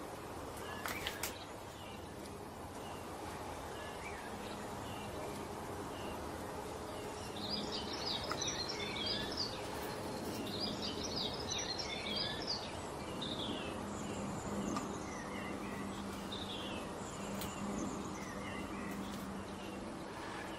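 Small birds chirping and twittering in the background, with two busier bouts of rapid twittering near the middle, over a faint steady low hum.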